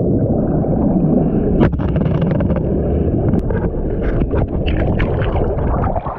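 Wind buffeting the microphone: a loud, steady, low rumble, with a few sharp clicks.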